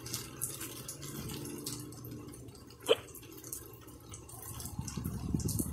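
Light rain falling, a steady patter of drops. A single sharp tap, the loudest sound, comes about three seconds in, and a low rumble builds near the end.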